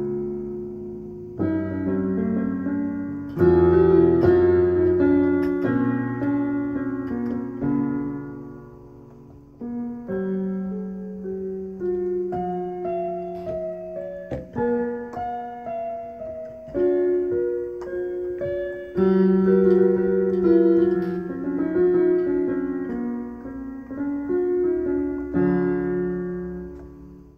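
Slow solo piano music: chords struck every second or two and left to ring and fade, dying away near the end.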